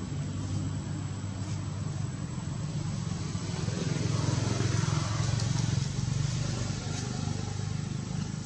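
Steady low engine rumble of a motor vehicle, growing louder around the middle and then easing off.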